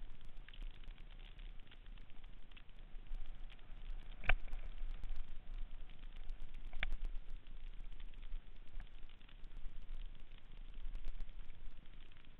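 Mountain bike rolling fast down a dirt singletrack: tyres running over dirt and debris and the bike rattling with many small clicks, over a low rumble. Two sharp knocks stand out, about four and seven seconds in.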